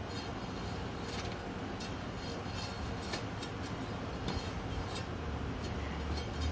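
A long-handled bar jabbed again and again into dry post-hole mix around a fence post, giving irregular crunching clicks, roughly two a second, as it works out air gaps before water is added. A steady low rumble runs underneath.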